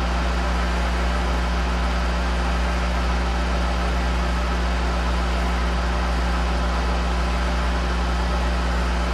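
1983 Monarch 10EE lathe running, a steady low hum that does not change.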